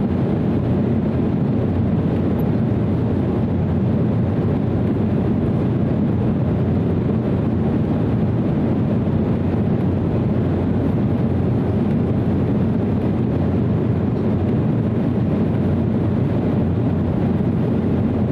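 Steady cabin noise of an Embraer 190 airliner in flight, heard from a window seat inside the cabin: the even, low drone of its GE CF34-10E turbofan engines and the airflow over the fuselage, unchanging throughout.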